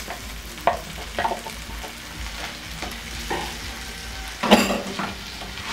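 Gizzards and onions sizzling in oil in an enamel frying pan as grated tomatoes are scraped in from a bowl, with light spatula knocks against bowl and pan and a louder clatter about four and a half seconds in.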